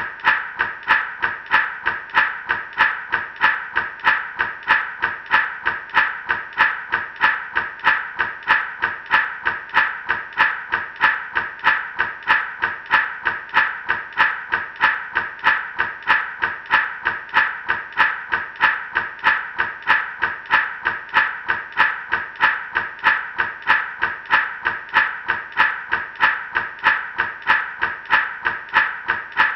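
Gourd rattle shaken in a steady, even rhythm of about two shakes a second, each stroke a bright rustling swish.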